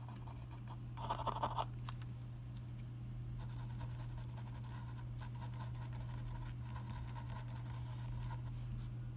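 Wooden toothpick scratching and ticking lightly on a chrome metal lens-mount ring as super glue is spread on it: a short scratch about a second in, then a run of faint quick ticks from about three seconds in, over a steady low hum.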